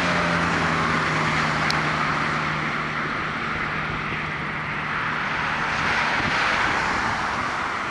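Jet airliner passing close by: a steady rushing engine noise with a low hum that slowly falls in pitch over the first six seconds.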